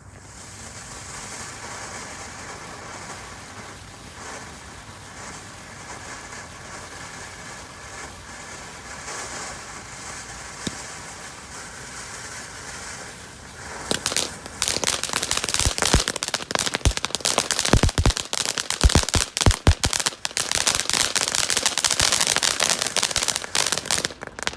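Consumer firework from a Brothers Pyrotechnics selection box hissing steadily for about thirteen seconds, then breaking into a dense run of crackles and sharp pops that runs on for about ten seconds and stops suddenly.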